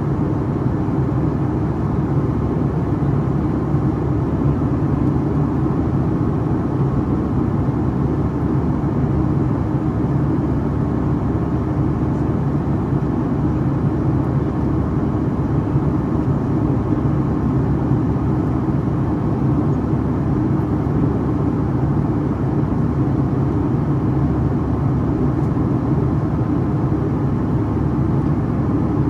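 Steady cabin drone of a Boeing 757-300 in flight, heard from a seat beside the wing: its Pratt & Whitney PW2000-series turbofan engines and the rushing air make a low, even rumble that does not change.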